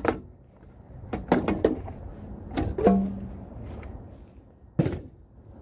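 Clunks and clatter of a steel toolbox's removable top tray being handled and lifted against the box: a quick cluster of knocks, a second cluster with a short metallic ring, then one more knock near the end.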